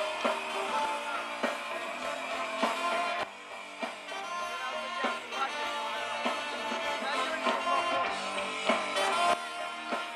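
A live ska-punk rock band playing an instrumental passage, with electric guitar and a drum kit keeping a steady beat.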